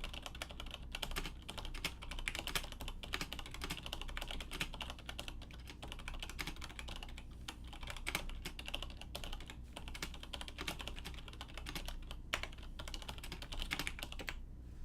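Continuous fast typing on a Siemens Nixdorf Nixie keyboard with its stock Nixie switches, steel plate and ABS keycaps: dense keystroke clicks that stop shortly before the end.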